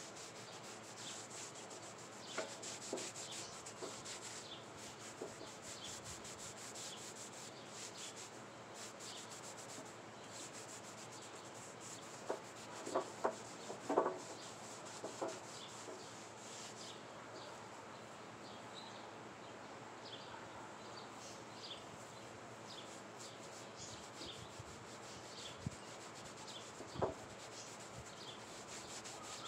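Stain being rubbed into a wooden board by gloved hand, a steady rubbing hiss, with a few short knocks about halfway through and one more near the end.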